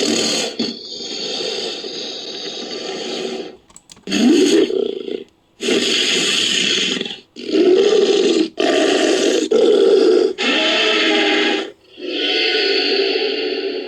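A string of about eight creature roars and growls, each lasting one to three seconds with short breaks between them; one rises in pitch about four seconds in. The calls are sound effects made from mixed animal recordings, which the creator lists as a Turok raptor sound and cougar and crocodilian sounds.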